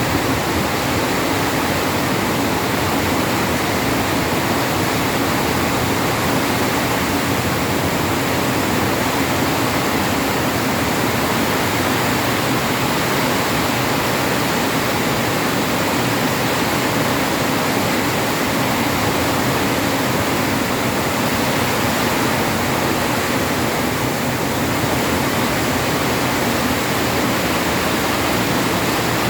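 Heavy rain pouring down steadily, an even, loud hiss with no let-up.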